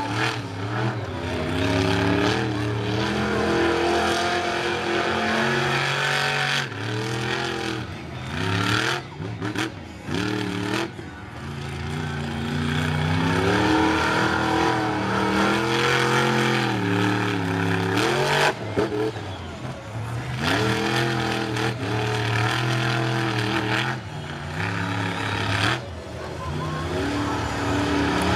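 Monster truck engine revving hard and easing off over and over as the truck drives and turns in loose sand, its pitch rising and falling repeatedly.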